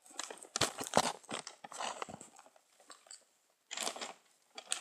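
Close handling noise while cream is spooned into a small bottle: scattered clicks, light knocks and crackling over the first couple of seconds, then a pause and a short rustle near the end.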